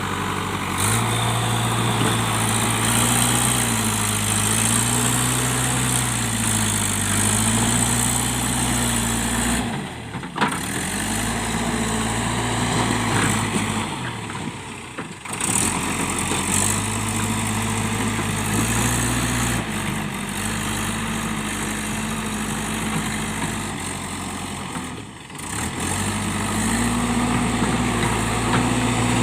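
JCB 3DX backhoe loader's diesel engine running, its pitch stepping up and down again and again as the engine speed changes. The sound drops away briefly three times.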